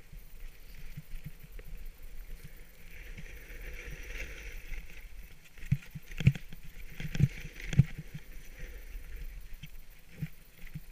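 A rider's edges scrape across packed snow on a descent, swelling into a hiss through the turns. Several sharp knocks come between about six and eight seconds in, and low wind rumbles on the helmet-camera microphone.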